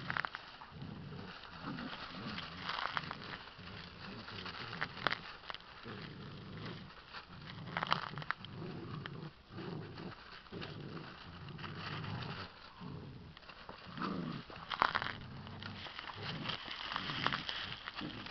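Two puppies growling in repeated bursts as they play tug-of-war with a cloth. Dry palm fronds crackle and rustle under their feet.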